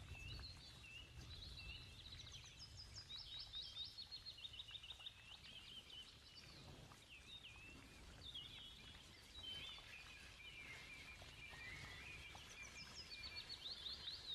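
Faint birdsong: small birds chirping and singing quick trills of rapidly repeated notes, over a low steady rumble.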